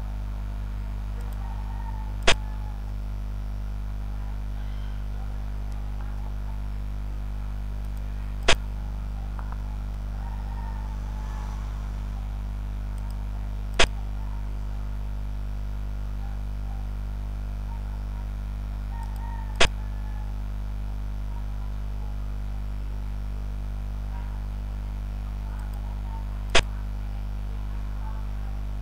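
Steady low electrical hum with five sharp clicks spaced about five to seven seconds apart, each a xiangqi piece being placed as a move is played on the animated board.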